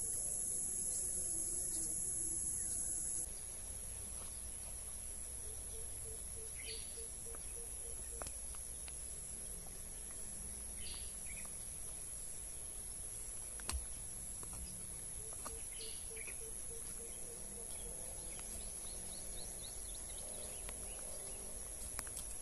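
A steady high-pitched insect drone from the field, louder for the first three seconds. A few short bird chirps and two brief runs of a low pulsing call break in, with one sharp knock about fourteen seconds in.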